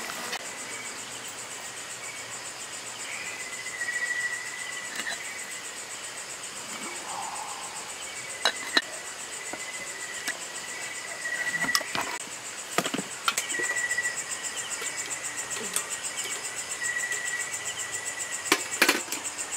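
Night insects chirping steadily: a fast, high, pulsing chorus with a lower trill that comes and goes. Several sharp metallic clinks of stainless steel camp cookware being handled, about halfway through and again near the end.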